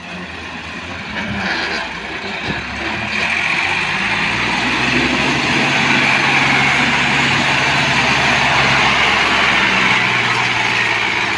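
Diesel farm tractor engine running hard as it hauls a trolley loaded with bricks up a rubble slope, the engine noise getting louder about three seconds in and then holding steady.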